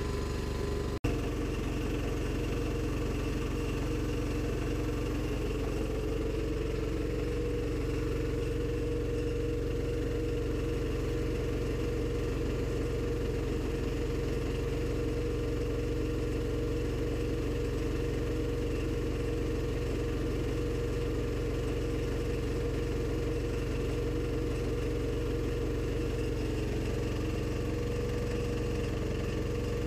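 Honda GX160 single-cylinder four-stroke engine driving a generator, running steadily under a 1,000-watt electrical load on GEET-reactor fuel. There is a single sharp click about a second in, and a steady hum grows stronger about five seconds in.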